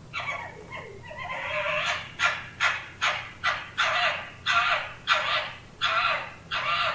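Urban red fox calling: a run of short, harsh, raspy calls, ragged at first, then settling about two seconds in into a steady series of roughly two calls a second.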